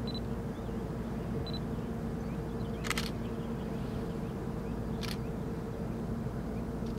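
Two sharp camera shutter clicks about two seconds apart, with a weaker third near the end, over the steady low drone of a distant Airbus A319 jet on final approach.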